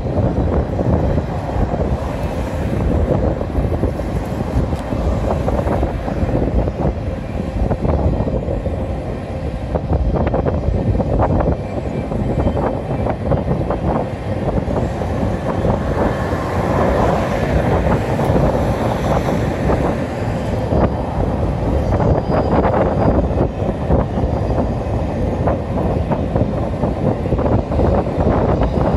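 Norfolk Southern intermodal freight train rolling across a bridge: a steady rumble of wheels on rails, with occasional clanks.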